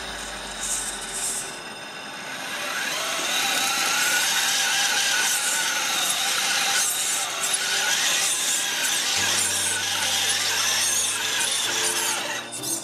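Scale RC rock crawler driving, its electric motor and gearbox whining with a pitch that wavers up and down with the throttle. It swells about two seconds in and cuts off shortly before the end.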